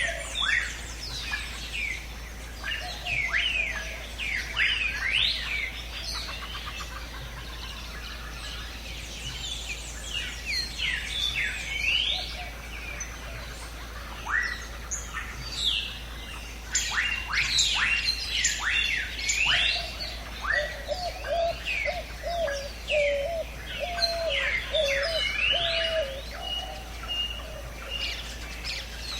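Birds singing together: many quick chirps and whistled notes that rise and fall, with a lower call repeated over and over through the second half.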